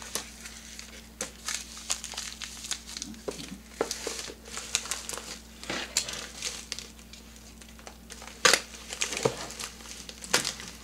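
Paper wrapping crinkling and rustling as a small item is unwrapped by hand, with irregular crackles; the loudest crackle comes about eight and a half seconds in.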